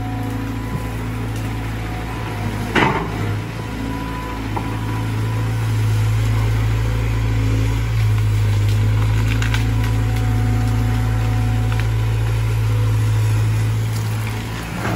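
Caterpillar 320 GC excavator's diesel engine running steadily under working load, its low drone getting louder about six seconds in as the machine swings. A single sharp knock stands out about three seconds in.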